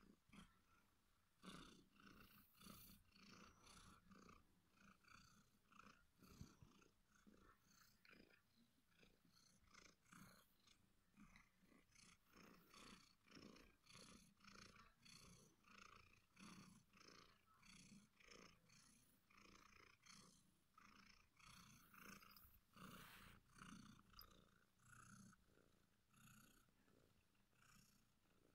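Domestic cat purring faintly while being stroked, the purr coming in regular swells, roughly one a second.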